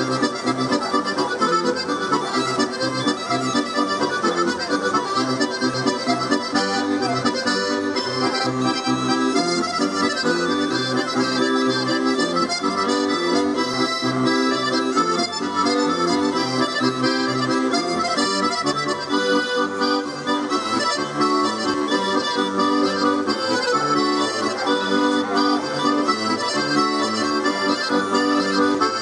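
Accordion playing a traditional dance tune, with a steady, even pulse of bass notes under the melody.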